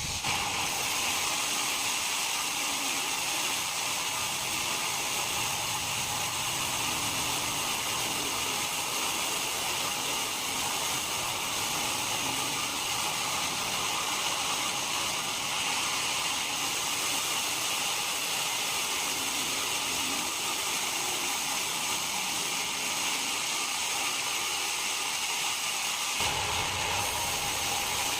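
Steady machinery noise: a continuous high hiss and whir at an even level, with a lower rumble joining near the end.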